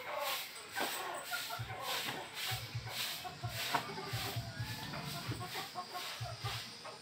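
Chickens clucking, over a hiss that pulses about twice a second and a low thrum that comes and goes from about a second and a half in.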